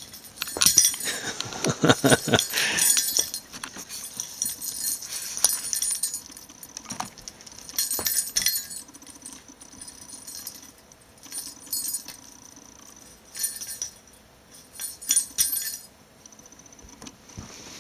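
A rabbit's bell toy jingling in irregular bursts as it is picked up, shaken and tossed about, with a few dull knocks on the bed. The longest, loudest jingling is in the first few seconds; shorter jingles follow every second or two.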